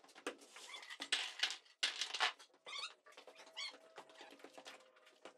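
Faint scattered clicks and knocks of footsteps and handling on a plywood subfloor, with two short squeaky chirps about midway.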